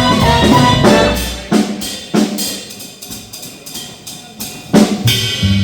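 A swing band playing live, then dropping out about a second in for a short, sparse drum break of a few sharp snare and bass drum hits with lighter cymbal ticks between them. The full band comes back in near the end.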